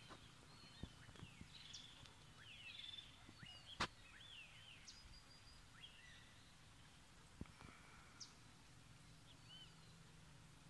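Faint, scattered dawn birdsong: short chirps and whistles from several small birds, with one sharp click about four seconds in.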